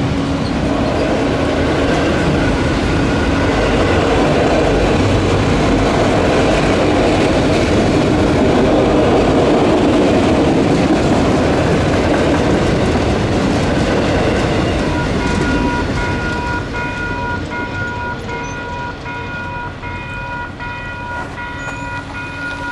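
Autorack freight cars rolling over the crossing, a loud steady rumble and rattle of wheels on rail that fades about two-thirds of the way through as the end of the train passes. After that the crossing's WCH electronic bell is left ringing steadily with its even, repeating strokes.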